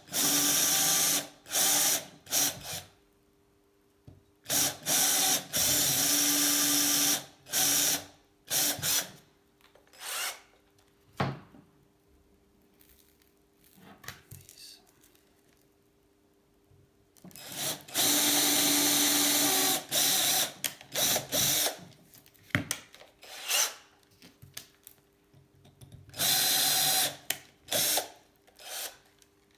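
Electric drill run in repeated short bursts of one to three seconds, with pauses between, boring small holes into a bicycle seat post.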